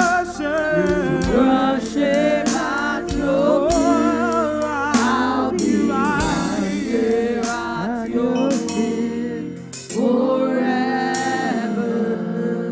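Live gospel worship music: several voices singing over a band accompaniment, with regular percussive hits through the first half.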